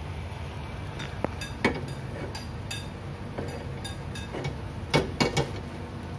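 Beaten egg cooking in a frying pan over a gas flame, a steady low hiss. Sharp metallic clinks break in about a second in and twice more late on.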